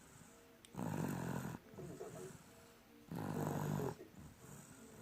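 Snoring: two snores, each just under a second long, about a second in and again just after three seconds.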